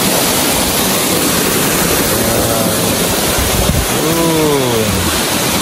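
Waterfall rushing steadily, a loud even roar of falling water. About four seconds in, a voice sounds briefly, falling in pitch.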